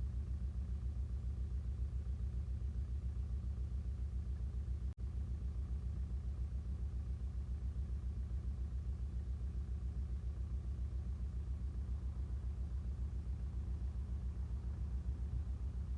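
International TD-9 crawler's four-cylinder diesel engine running steadily with an even low pulse, dropping out for an instant about five seconds in.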